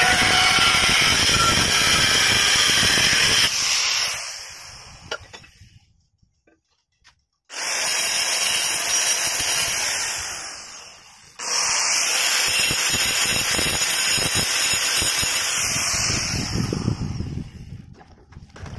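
Handheld angle grinder cutting a ceramic floor tile, switched off and winding down about four seconds in, then started up again twice with a sudden burst, each run fading as the disc spins down.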